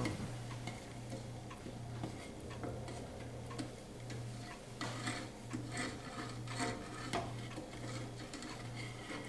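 Wooden spoon stirring a slowly boiling sugar syrup in a stainless steel pot: soft scrapes and scattered light knocks of the spoon against the pot, over a low hum that pulses about twice a second.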